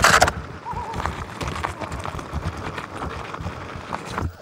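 Onewheel GT riding over rough pavement, heard from a microphone inside the board's rail: the tire's rolling rumble with a dense, irregular clatter of knocks and rattles through the frame, and a short loud burst right at the start.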